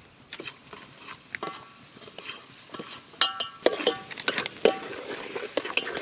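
Steel ladle and spoon clinking and scraping against a stainless steel cooking pot while stirring a tomato and pea masala. Some knocks ring briefly like struck metal, and the clinks come faster in the second half.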